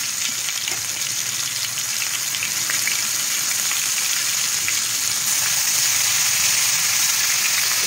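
Spice-paste-coated eggplant slices shallow-frying in hot oil, a steady sizzle with small crackles. It grows a little louder about five seconds in, as a second slice goes into the oil.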